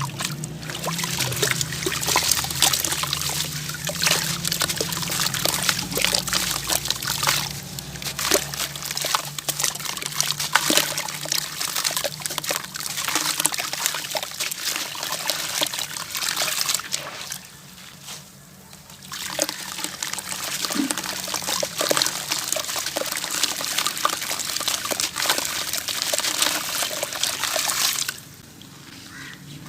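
Gritty heart-shaped pieces crumbling in water: dense crackling and fizzing over a trickle of water. It pauses briefly a little past the middle and again near the end.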